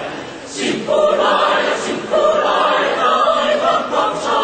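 A choir singing, holding long notes with sung words between them; the singing swells in under a second in.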